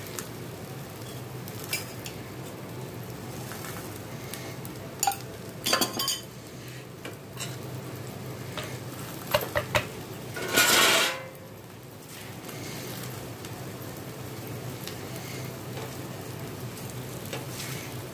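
Chapati sizzling in a little oil on a hot tawa, with a few sharp clinks of a metal utensil against the pan about five to six and nine to ten seconds in. A louder rushing noise lasting about a second comes near the middle.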